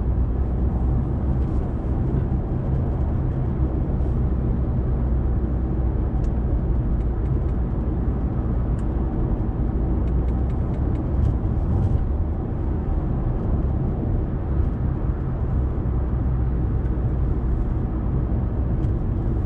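Steady road and tyre noise inside a Honda Accord's cabin at highway speed, a low even rumble, with a few faint clicks around the middle.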